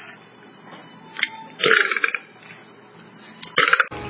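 A man belching: one loud burp about one and a half seconds in, and shorter bursts near the end, where the sound jumps suddenly louder.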